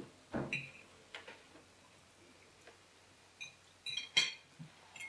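A fork clinking and tapping against a plate while someone eats: scattered short clinks with a brief ring, one soon after the start and a louder cluster about four seconds in.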